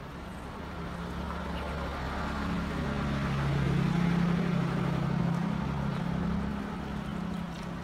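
Water from a handheld shower sprayer running over hair into a shampoo basin, under a low engine-like hum that swells over a few seconds and then fades.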